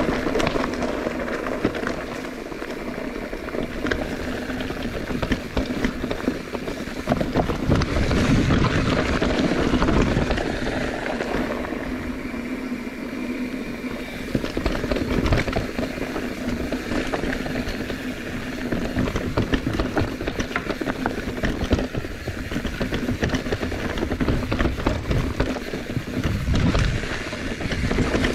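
Wind buffeting the microphone over rumbling tyre noise from a bicycle being ridden, rising and falling in gusts.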